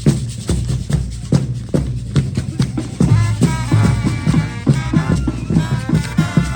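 Live procession music: drums keep a steady beat with rattles shaking, and a melody line joins in about three seconds in.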